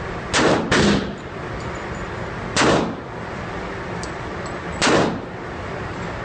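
Four pistol shots from a 1911-style pistol: two in quick succession about half a second in, then single shots about two seconds apart, each echoing briefly in an indoor range over a steady background hiss.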